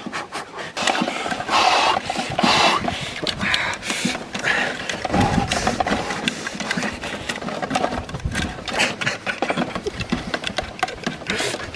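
Fire lit by hand drill: a wooden stick spun fast back and forth between the palms, its tip grinding against wood, a quick, continuous scraping rub. Heavy, effortful breaths surge through it in the first few seconds.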